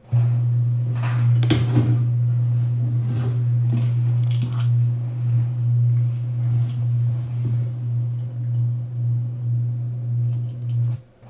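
A loud, steady low hum from a played-back video clip. It starts abruptly, has a few faint knocks and rustles over it in the first few seconds, and cuts off about a second before the end.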